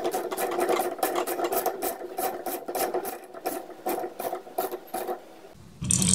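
Wrench tightening the nylon lock nut on an outboard propeller shaft: a fast run of rasping clicks, about four or five a second, that stops about five and a half seconds in.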